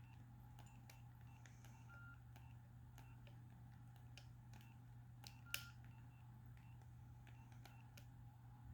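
Nokia 3588i cell phone keys being pressed: faint clicks, each with a short, soft key beep, a few a second at times. One louder click and beep comes about five and a half seconds in, over a low steady hum.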